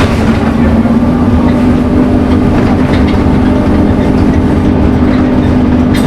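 Scania N230UD Omnicity bus's five-cylinder diesel engine running at a steady speed, heard on board as a loud, even hum that holds one pitch, with a light click or rattle near the end.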